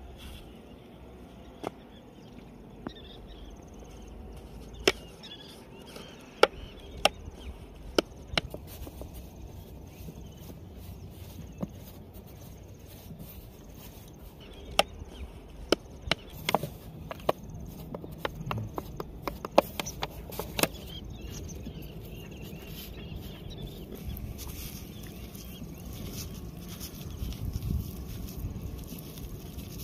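Sharp clicks and taps of a glass jar and a steel plate being handled, a dozen or so spaced a second or two apart. In the last third they give way to denser soft wet squishing as fingers knead flour and water into a dough bait on the steel plate.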